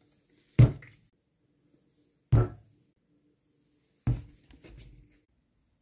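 Three thuds of plastic bottles being set down one after another on a rubber gun-cleaning mat over a wooden bench, each a short knock, about two seconds apart.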